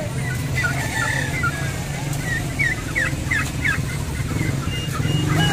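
Caged poultry chirping and peeping: many short, quick calls, busiest in the middle, over a steady low hum.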